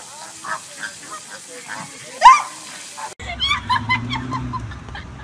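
A flock of flamingos honking and grunting while feeding from a hand, many short calls with one loud rising call about two seconds in. After a sudden cut about three seconds in, a steady low engine hum with a few short calls over it.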